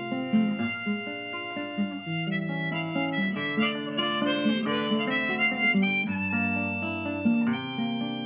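Harmonica on a neck rack playing a melody of held notes over a nylon-string classical guitar, one player performing both at once.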